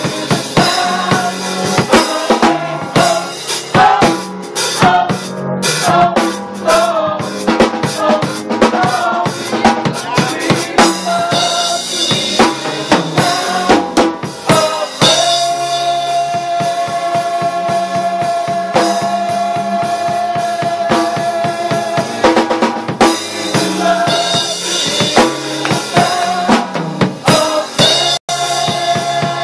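Live gospel band playing an instrumental passage: a drum kit with kick and snare keeps a busy beat under sustained pitched chords. Midway the drumming thins out for several seconds under a long held note, then picks up again.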